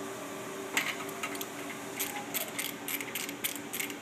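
Metal clinks of bolts being set into the keyhole slots of a steel manifold adapter plate, then from about two seconds in a quick run of sharp clicks, about five a second, as a wrench turns the bolts. A steady shop hum lies underneath.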